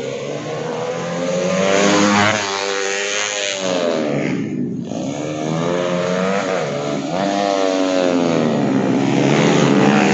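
Two small racing motorcycles' engines revving hard as they accelerate and shift through the corners. The pitch climbs and falls again and again. It drops off briefly about four and a half seconds in, then rises again.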